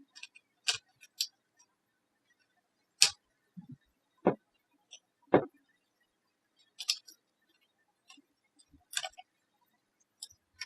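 Plastic laptop screen bezel being handled and fitted onto the lid: about a dozen sharp clicks and taps at irregular intervals, a few louder than the rest.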